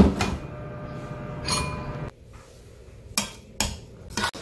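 Metal spoon clinking and scraping against a stainless steel pot as the steamed chicken, cabbage and tofu are stirred, a few sharp clinks in the second half. Before that a steady hum, with a knock at the very start.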